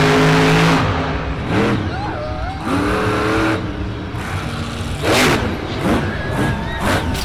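Monster truck engine revving up and easing off twice, then a loud burst of noise about five seconds in as the truck hits a jump.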